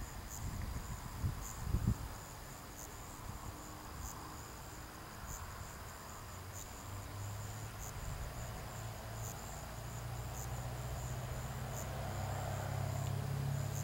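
Crickets trilling steadily at a high pitch, with a louder pulse about every second and a bit. A low steady hum comes in about halfway through and slowly grows. There are two soft knocks about two seconds in.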